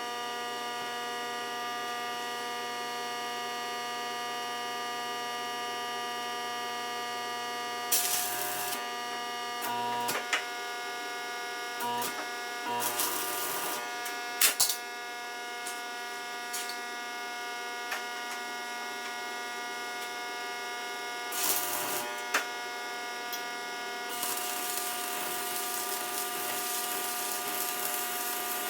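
Arc welder humming steadily with a buzzy stack of tones, broken a few times by short bursts of crackling arc noise, then a steadier crackle in the last few seconds as a weld bead runs.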